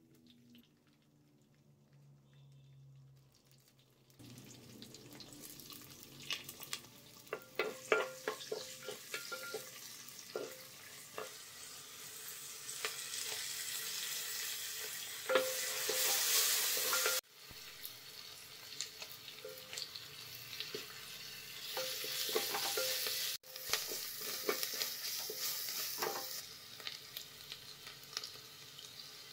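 Hot oil sizzling in a clay cooking pot as ingredients fry, with a spoon clacking and scraping against the pot while stirring. The sizzle starts about four seconds in and cuts off abruptly twice.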